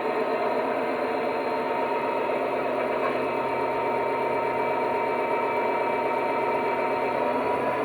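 Sound decoder in a model Class 66 locomotive playing its recorded EMD two-stroke diesel engine running steadily under power, through the model's small on-board speaker. Drive hold is on, so the engine sound is worked up through the power notches while the model stays still.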